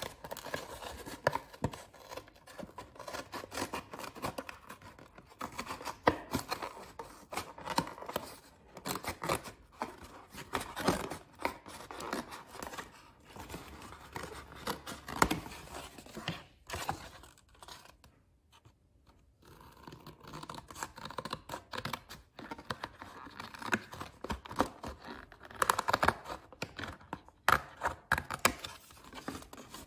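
Small scissors snipping through a thin printed cardboard box, a long run of crisp cuts with the card scraping and flexing against the blades, with a short pause a little past the middle.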